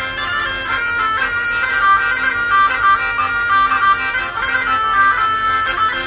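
Traditional instrumental music led by bagpipes: a melody over a steady drone.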